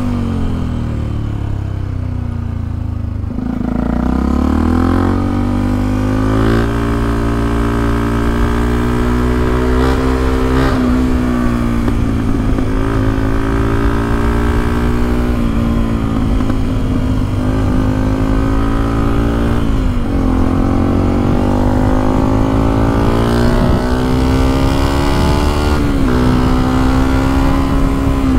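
Yamaha WR125X's single-cylinder 125 cc four-stroke engine with an Exil half-line exhaust, heard on board while riding. It runs low for the first few seconds, picks up about four seconds in, then repeatedly climbs in pitch under throttle and drops back.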